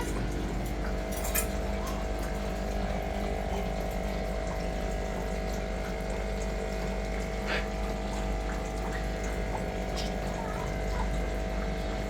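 A steady mechanical hum made of several held tones over a low rumble, with a few faint clicks: one about a second and a half in, one about seven and a half seconds in, and one near ten seconds.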